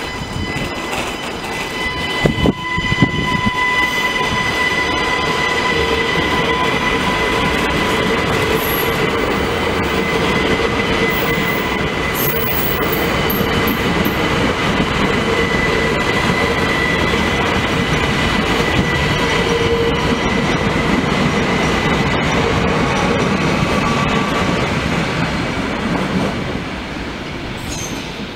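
Siemens Desiro ML (ÖBB Cityjet) electric multiple unit pulling out and accelerating away, its wheels rolling on the rails under a steady high whine. A few sharp knocks come about two seconds in, and the sound fades near the end as the train draws off.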